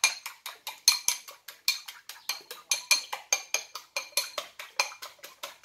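Eggs being beaten by hand in a white ceramic bowl, the utensil clicking against the bowl about five times a second with a bright ring, stopping abruptly at the end.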